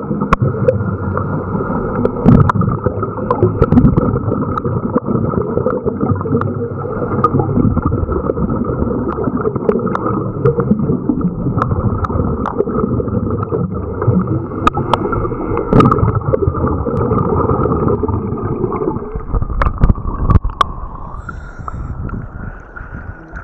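Muffled underwater noise picked up by a camera in a waterproof housing, a steady dull hiss with scattered sharp clicks. Near the end the camera breaks the surface and the sound turns thinner and quieter, with water slopping around it.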